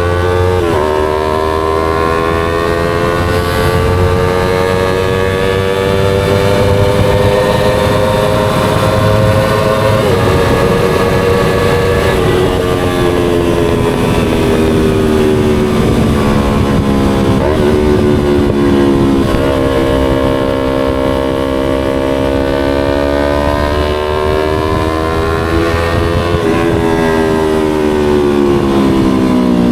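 Yamaha YZF-R25's parallel-twin engine through an SC Project aftermarket exhaust while riding, its note slowly climbing and falling with road speed and jumping in pitch at several gear changes.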